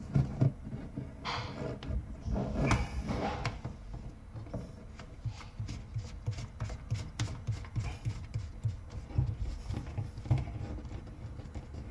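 Hands handling plastic plumbing parts. A washing-machine drain hose and a white plastic siphon rub and knock as the hose end is pushed onto the siphon's side spigot. There are a few sharp plastic clicks in the first few seconds, then soft, irregular knocks.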